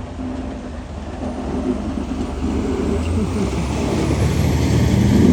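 Snowplow truck driving past, its engine rumble and rushing noise growing steadily louder as it nears.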